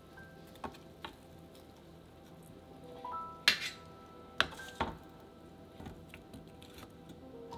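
A few sharp clacks and knocks of kitchen tongs against an air fryer basket as pieces of roasted pork belly are lifted out, the loudest about three and a half seconds in, then softer taps as onion slices are set in the basket. Soft background music runs underneath.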